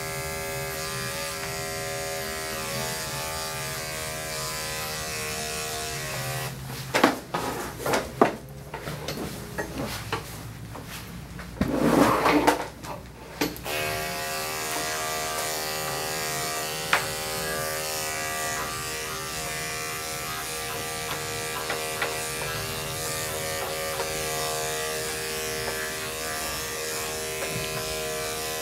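Electric pet-grooming clipper running with a steady buzz as it shears a dog's coat. About a quarter of the way in the buzz stops for roughly seven seconds, and a few loud irregular knocks and rustles take its place. Then the clipper starts again and runs steadily on.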